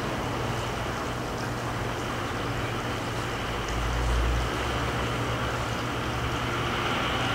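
Steady background noise with a low, even hum; a low rumble swells briefly about four seconds in.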